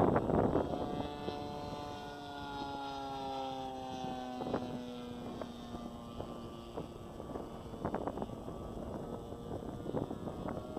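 Two-cylinder petrol engine of a scale P-51 Mustang RC model droning high overhead, its pitch slowly falling as it passes. Wind gusts on the microphone can be heard, loudest at the start.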